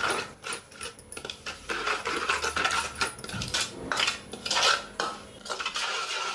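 Steel spoon stirring and scraping a wet spice paste around a stainless steel bowl: irregular, repeated scrapes and light clinks of metal on metal.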